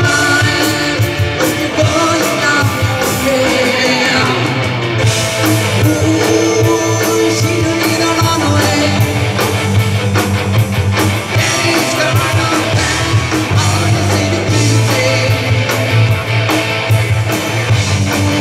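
Live rock band playing loudly through a PA: electric guitars, bass, keyboard and a drum kit keeping a steady beat, with a lead vocalist singing.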